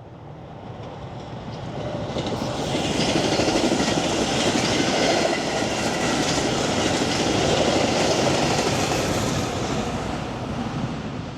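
Train passing on the tracks, its wheels running over the rails. The sound builds over the first few seconds, holds steady, eases a little near the end, then cuts off suddenly.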